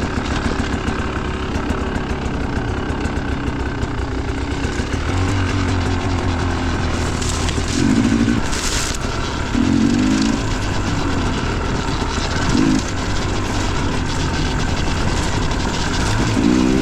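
Dirt bike engine running while riding, with a few short throttle blips that rise in pitch in the second half.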